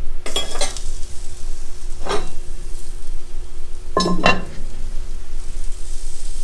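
Metal clanks on cast iron as a Lodge cast-iron Dutch oven is being lidded. There is a light knock just after the start and another about two seconds in, then a louder double clank about four seconds in as the heavy cast-iron lid is set down onto the pot.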